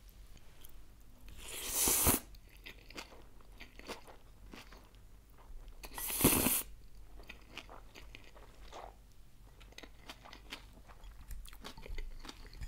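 Close-miked slurping of cold noodles, twice (about a second and a half in and about six seconds in), with chewing and small crunches of the noodle salad's vegetables between and after.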